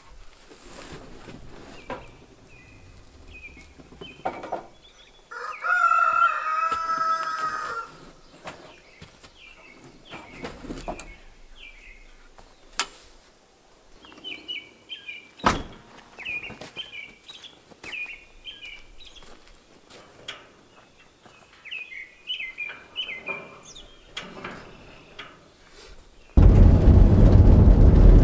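Outdoor ambience of small birds chirping again and again, with one loud, drawn-out bird call about two seconds long and a single sharp knock about halfway through. Near the end it cuts to steady road noise inside a moving car.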